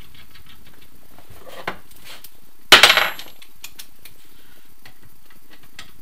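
Metal hand tools and crank parts being handled as the crank bolt goes into a Scott two-stroke crank assembly: light metallic clicks and clinks, with one loud, short metal clatter about three seconds in.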